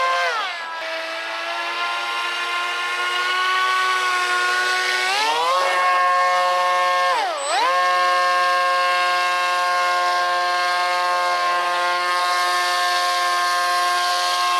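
Aquacraft Cajun Commander RC airboat's motor and air propeller whining steadily. The pitch drops within the first second, climbs about five seconds in, dips and comes straight back up about seven seconds in, then holds steady.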